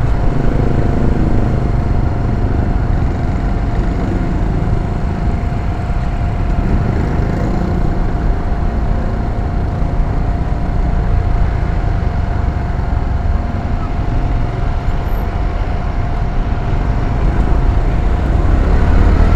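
Motorcycle riding through slow traffic: its engine running under wind rumble on the camera's microphone, with a steady thin whine over a low rumble.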